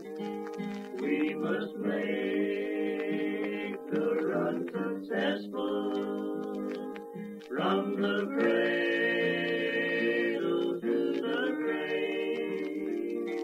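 A bluegrass band's singers holding long notes in harmony through a song, phrase after phrase, on a 1948 radio recording.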